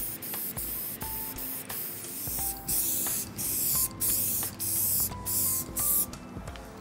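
Aerosol spray can spraying onto a carbon-fibre hood in a string of hissing bursts, short at first and longer from about two seconds in.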